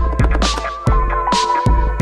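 Electronic background music with a heavy bass beat and snare hits alternating a little under a second apart.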